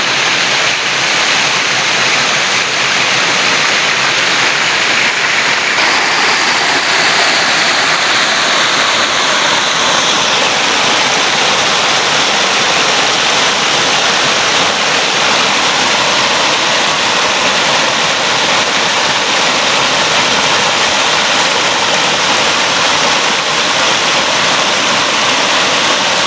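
A small waterfall cascades over rock ledges and boulders, making a loud, steady rush of water. Its tone shifts a little about six seconds in.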